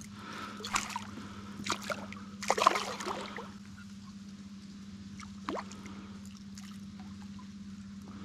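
Hooked yellow peacock bass thrashing at the surface beside a kayak: several quick splashes in the first three seconds and another about five and a half seconds in, over a steady low hum.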